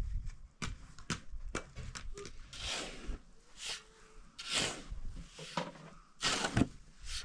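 A steel shovel scraping into a pile of sand and tossing it, in repeated swishes roughly once a second. Before that come a few short sharp knocks as a concrete block is set in place on a wall.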